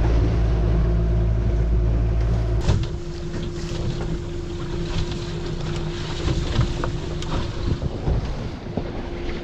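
Boat's outboard motor running under throttle, then pulled back about two and a half seconds in, dropping to a faint idle. Wind on the microphone and water slapping the hull fill the rest.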